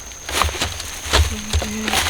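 Sugar cane stalks knocking and rustling as they are handled, a few separate knocks, with a short steady tone near the end.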